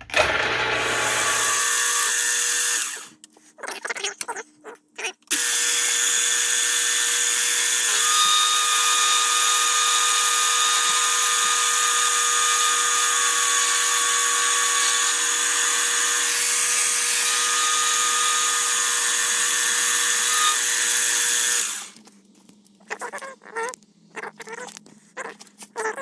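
Benchtop mill spinning aluminium bar stock in its chuck while a lathe cutting tool held in the vise turns it down: a steady motor hum under a loud, high cutting hiss. It runs for a few seconds, stops briefly, then runs again for about sixteen seconds before stopping, followed by a few short clinks.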